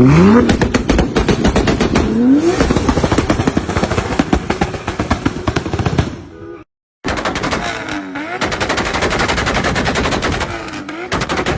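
Toyota Supra engine revving hard, pitch climbing quickly twice in the first few seconds, with a rapid string of loud exhaust pops and bangs crackling through the revs. After a short break the revs dip and rise again with the popping continuing.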